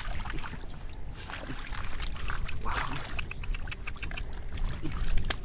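Splashing and wet slapping in shallow muddy water as fish thrash and hands grab at them, a quick run of short sharp splashes and clicks.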